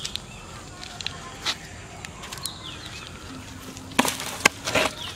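A live fish slapping and thrashing in a plastic bucket: a few sharp knocks and slaps about four seconds in, after scattered small handling clicks.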